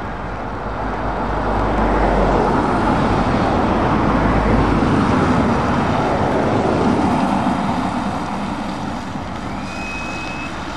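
Road traffic passing on a wet road: tyre hiss and engine noise from vans, cars and heavy trucks moving in a slow convoy. It swells for several seconds in the middle as the vehicles go by, then eases off.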